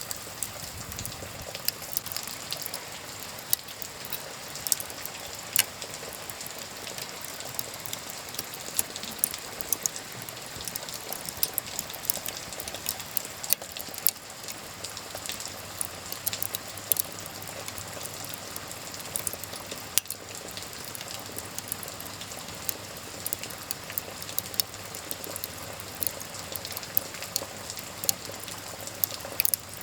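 Wood fire crackling, with irregular sharp pops, over the steady hiss of falling rain.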